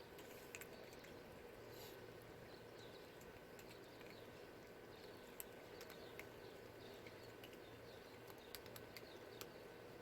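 Faint, irregular crunching clicks of cats eating dry kibble, with small birds chirping faintly behind and a steady low hum.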